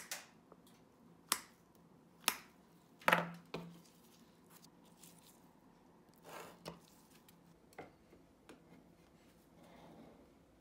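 A few sharp clicks and snaps of steel pliers gripping and pulling nails out of a leather shoe heel, then quieter scratching.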